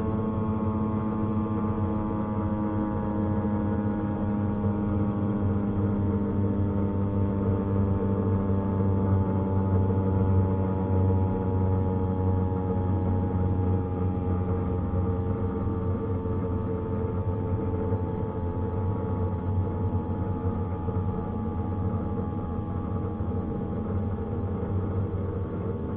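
Federal Signal STH-10A single-tone outdoor warning siren winding down, its steady tone sliding slowly lower in pitch throughout.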